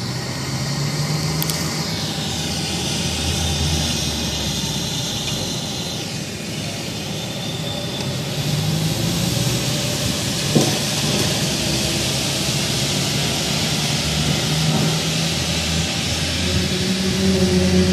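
Recorded skyquake sound: long, drawn-out low tones that shift between a few pitches over a steady rushing noise, with a single sharp click about ten and a half seconds in. The tones grow louder near the end.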